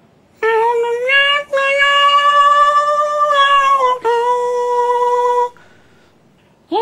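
A man imitating a harmonica with his voice: high, reedy held notes with a rich, buzzy tone. Three long notes, the middle one longest, then a pause and a fourth note starting near the end.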